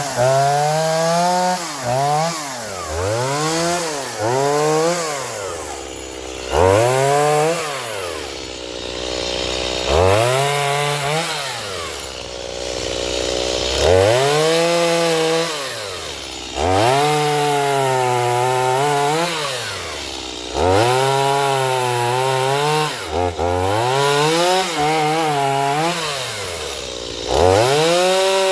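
Stihl MS210 chainsaw, a small two-stroke, revving up to full throttle and dropping back to idle over and over while limbing small branches, its pitch sagging and wavering under load during the longer cuts.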